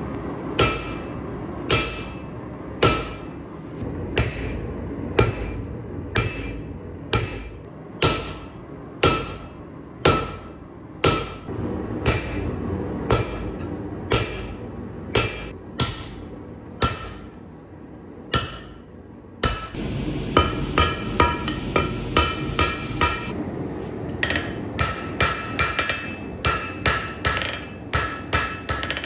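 Sledgehammer blows on hot steel held on an anvil, about one a second, each with a short metallic ring. About two-thirds of the way in the sound changes to quicker hand-hammer blows on the hot bar, two or three a second, with the anvil ringing.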